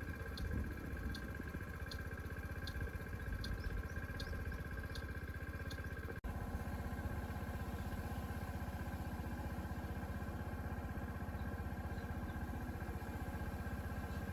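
Motorcycle engine running steadily. Light regular ticking about twice a second until an abrupt cut about six seconds in, after which the engine continues.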